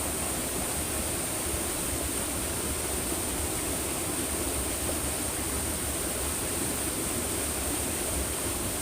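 Steady rush of flowing stream water, even and unbroken, with a constant high-pitched whine above it.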